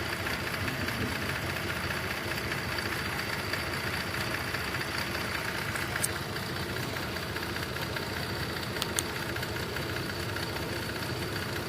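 2004 Cadillac SRX 3.6-litre V6 idling steadily, with an intermittent injector fault that has set misfire codes on cylinders 1 and 3. Two short clicks come about six and nine seconds in.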